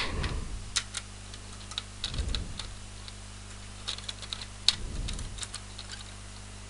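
Scattered small plastic clicks and taps from handling a plastic flower loom and its needle while fitting the needle back into place, with a couple of soft low thumps about two and five seconds in.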